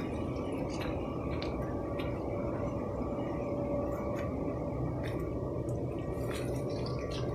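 Footsteps on a dirt path through tea bushes, heard as faint irregular ticks over a steady rushing background noise.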